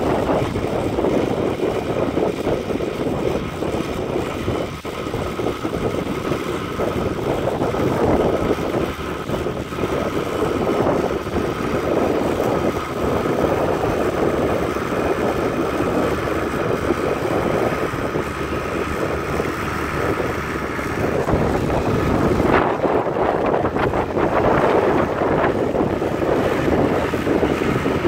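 Fordson tractor engine running steadily under load as it pulls a plough, with wind buffeting the microphone.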